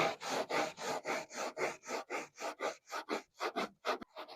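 Hand scrubbing on a car's painted steel body, rapid back-and-forth rubbing strokes, about five a second, lifting old residue off the paint.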